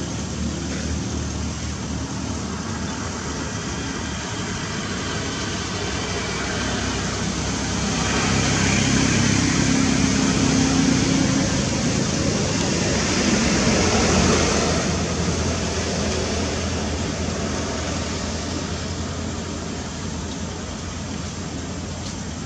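Motor vehicle noise from a nearby road: a steady hum that swells about a third of the way in, stays loudest through the middle and fades away again, like a vehicle passing.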